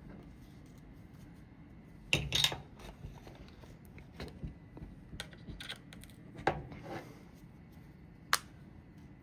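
Scattered small metallic clicks and rattles of a 10/22 trigger group being handled and fitted into the receiver, with the loudest clatter about two seconds in and a few single sharp clicks later.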